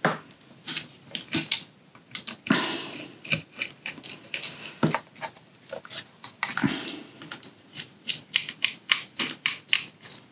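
Small screwdriver and fingers working on the plastic laser distance sensor module of a Roborock S50 robot vacuum, undoing the tiny screws that hold its motor: a run of irregular small clicks and ticks, with a couple of longer scrapes.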